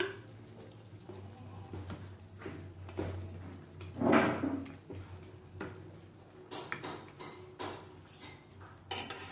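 Wooden spatula stirring and scraping fried fish in sauce in an aluminium wok, loudest about four seconds in, with scattered light knocks against the pan. A low steady hum runs underneath.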